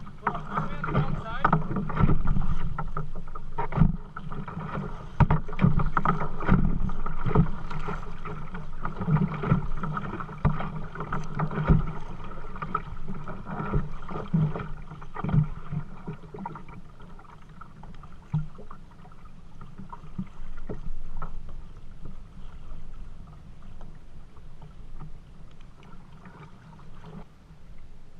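Kayak being paddled on a river: paddle strokes splashing in the water with irregular knocks. It is louder for the first half and quieter after about sixteen seconds.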